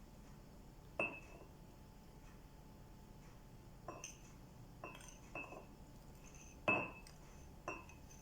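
A metal spoon clinking against a dish or container as brown sauce is spooned out and stirred: about eight short, ringing clinks spread irregularly, the loudest about a second in and near the end.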